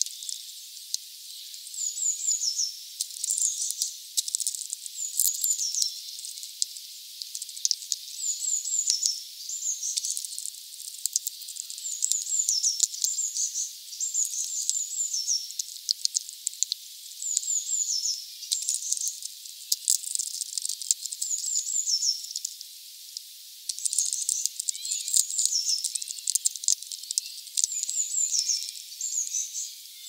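High-pitched songbird song: short, thin phrases that step down in pitch, repeated every second or two, with scattered sharp clicks.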